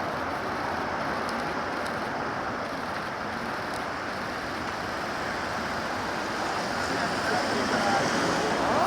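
Steady road traffic noise, a hiss of tyres and engines, growing a little louder near the end.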